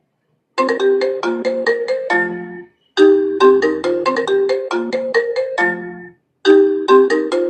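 iPhone ringtone ringing: a short melody of bright struck notes that repeats after a brief pause, about every three seconds.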